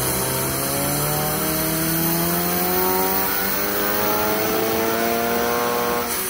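Turbocharged 2.4-litre flat-four of a 2022 Subaru BRZ making a dyno pull under load, its revs climbing steadily for about six seconds. It drops off near the end.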